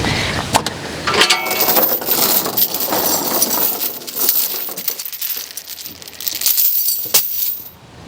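Irregular knocks and clinks of hard objects being handled, with a rattling stretch about a second in and a last sharp knock near the end.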